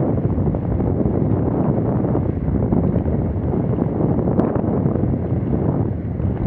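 Wind rushing over an action camera's microphone while inline skating at about 14 mph: a steady, loud rush with no breaks.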